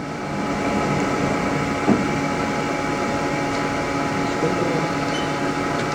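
Haas TL-2 CNC toolroom lathe running, a steady mechanical hum with several held tones, while an axis is driven from the hand wheel. There is one faint knock about two seconds in.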